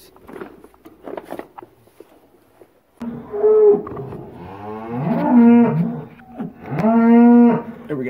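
A cow mooing: three long, loud calls in the second half, each about a second, after a few seconds of faint rustling and handling.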